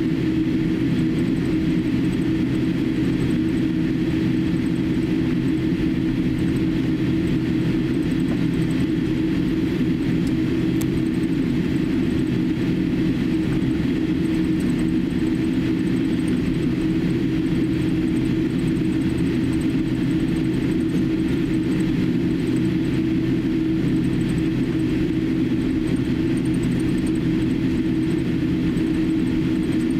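Steady cabin noise inside a Boeing 787-8 taxiing with its engines at idle: a constant low hum with a few steady tones and a faint rumble from the ground roll.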